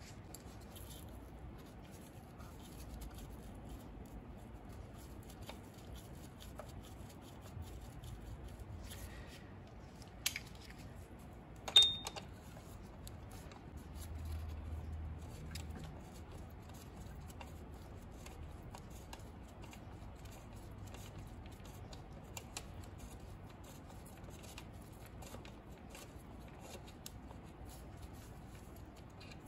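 Faint clicking of a socket wrench loosening the 10 mm bolts that hold the serpentine belt tensioner on a 1995 Chevy Caprice's LT1 engine. Two sharp metal clinks come about ten and twelve seconds in; the second is the loudest and rings briefly.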